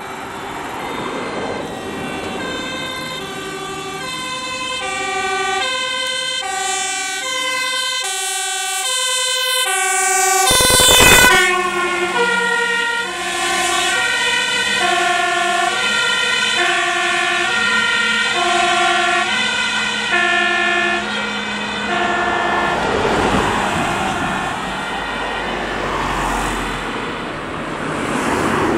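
Fire engine's two-tone siren alternating high and low, growing louder as the truck approaches. It passes close about eleven seconds in with a brief loud rush, then drops in pitch and fades slowly as the truck drives away.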